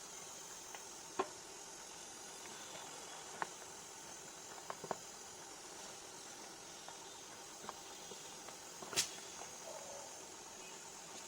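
Steady hiss with scattered light clicks and knocks, the loudest knock about nine seconds in.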